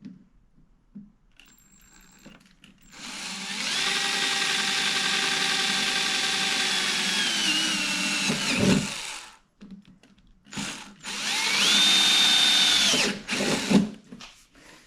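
Power drill boring bolt holes through an aluminum top case: one long run of about six seconds whose pitch sags near the end, then a shorter run of about two seconds that rises to speed, with a few light knocks between.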